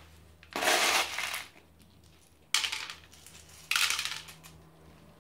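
Masato granite grit rattling off a spoon onto potting soil in three separate spoonfuls, the first the longest.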